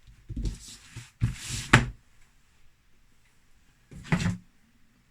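Packaging being handled and pulled open as a small mail parcel is unpacked: short rustling, tearing bursts, two close together in the first two seconds and another about four seconds in.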